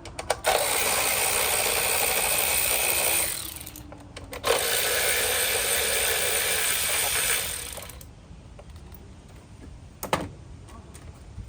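Cordless power tool with a 10 mm socket spinning out bolts from an engine cover, two runs of about three seconds each; the first winds down as it stops. A couple of light clicks follow near the end.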